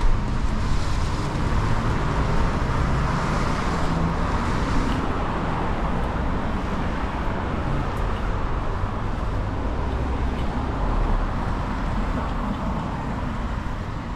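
Road traffic on a wet street: passing cars' tyres hissing on the rain-soaked road over a low engine rumble, louder in the first few seconds as a vehicle goes by, then settling to a steady traffic noise.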